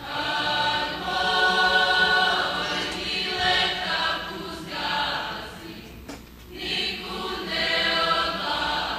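A group of voices singing a Serbian folk song together in long held phrases. The singing drops briefly about six seconds in, then goes on.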